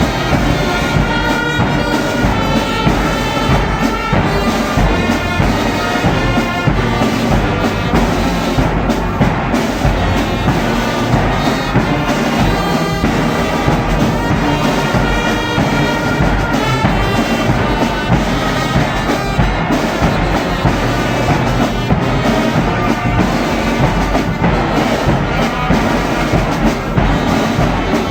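Brass band playing a tune of sustained, changing notes, with drums striking a steady beat underneath.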